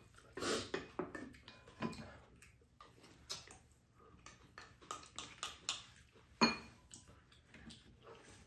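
Spoons clinking and tapping against soup bowls during a meal, a scatter of short knocks, with one louder ringing clink of a spoon striking a bowl about six and a half seconds in.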